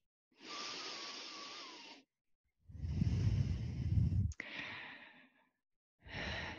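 A woman breathing out and sighing into a close headset microphone: three separate breaths, the middle one heavier, with breath rumbling on the mic, and a sharp click about four seconds in.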